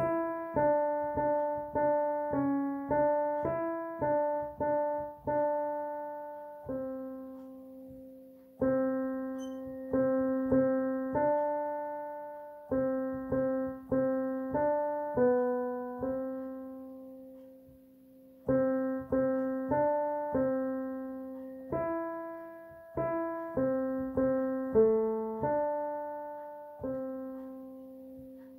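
Roland digital piano playing the alto line of a church hymn as a single melody, one note at a time, in three phrases that each end on a held note.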